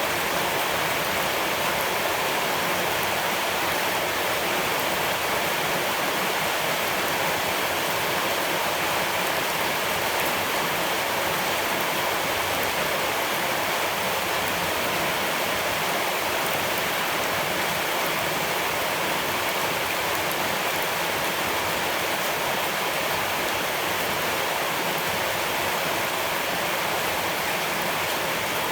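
Steady rushing water, an even hiss that holds unchanged throughout.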